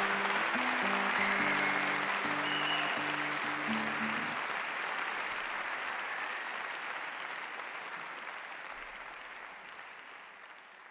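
Audience applauding as a gypsy jazz guitar tune ends; the last notes stop about four seconds in, and the applause carries on and fades out.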